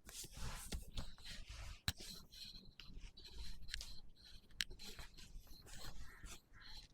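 Faint rustling and rubbing of clothing and body against a chiropractic treatment table, with a couple of short sharp clicks.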